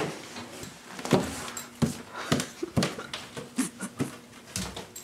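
Footsteps climbing a staircase, an irregular series of dull steps about every half second to second.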